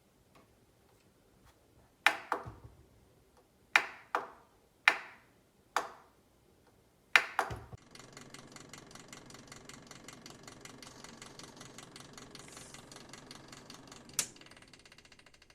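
Six sharp clicks, then a small motor running with a fast, even rattle from about halfway through, with one more click shortly before it fades out.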